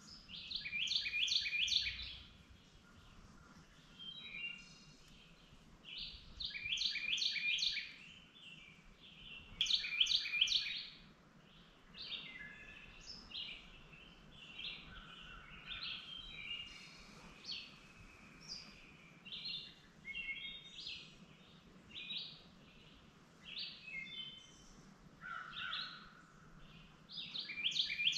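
Songbirds singing: several loud phrases of rapid, high chirping notes, with softer chirps and calls in between.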